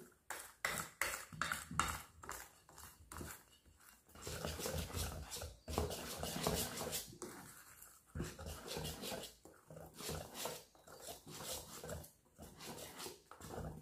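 A wire whisk beating thick batter in a stainless steel bowl: a steady rhythm of wet swishes and light clicks of the wires against the metal, about three strokes a second.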